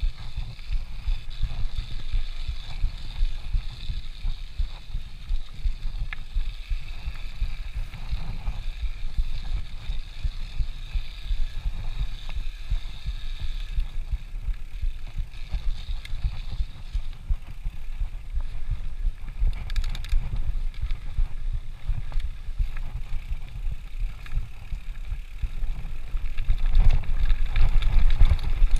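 Mountain bike rolling fast over a dirt forest trail, heard from a camera on the rider: a continuous low rumble of rapid thumps and jolts from the tyres and frame over the bumpy ground. It grows louder near the end as the bike speeds up downhill.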